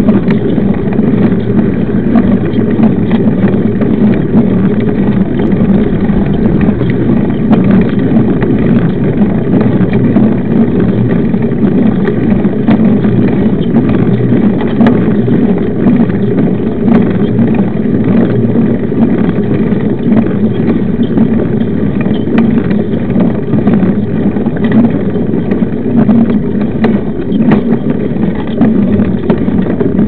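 Steady rushing noise of a mountain bike rolling along asphalt: the knobby tyres humming on the road and wind buffeting the microphone, loud and unbroken.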